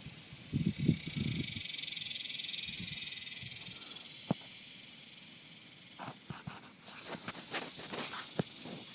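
Hand tools working on a connecting-rod cap under a car: a few dull knocks, then a run of irregular metal clicks and clinks, over a steady hiss that swells for a few seconds.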